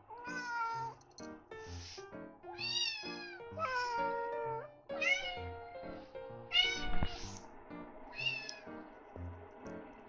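A cat meowing over and over, about six drawn-out meows in a row, each rising and then falling in pitch, over background music: a cat making a fuss for its breakfast. A single sharp click about seven seconds in.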